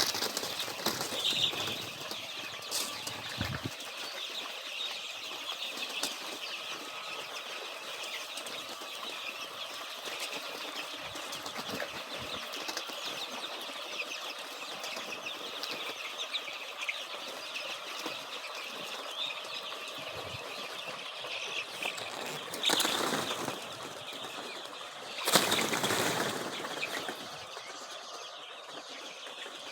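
A flock of 15-day-old layer chicks peeping continuously, a dense high chatter of many birds. Two louder rustling surges come near the end.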